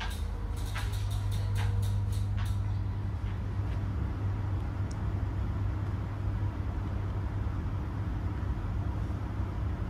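Steady low hum inside a VR Pendolino Sm3 train carriage standing at a platform, with a quick run of light clicks and taps in the first couple of seconds.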